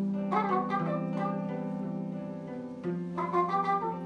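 Small folk-jazz ensemble playing a waltz: plucked concert-zither notes over a steady low hurdy-gurdy drone, with electric guitar and trumpet. New groups of plucked notes come in about a third of a second in and again near the end.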